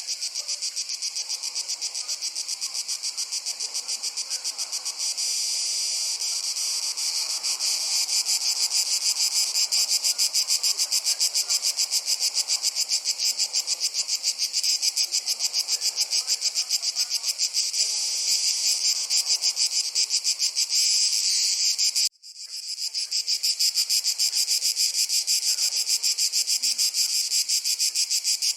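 Dense chorus of singing insects: a fast, high-pitched pulsing that grows a little louder over the first few seconds. About three-quarters of the way through it cuts out suddenly for an instant, then swells back.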